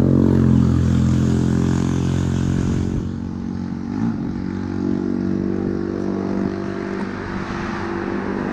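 Motor vehicle engine running steadily while driving, loudest over the first few seconds, with a brief shift in pitch about four seconds in.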